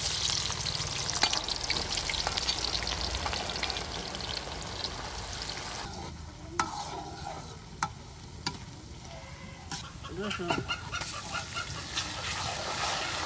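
Pieces of desi chicken sizzling hard as they hit hot oil in a pan. The frying hiss eases after about six seconds, with a few sharp knocks against the pan as it is stirred.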